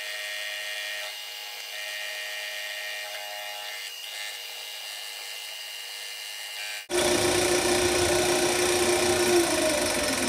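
A 10x22 benchtop metal lathe spins a boring bar in its four-jaw chuck as a makeshift fly cutter, taking interrupted milling cuts from a metal block clamped in a vise on the cross slide. It gives a steady machining whir with several steady tones. About seven seconds in, the sound changes abruptly to a louder, fuller run with a steady low hum.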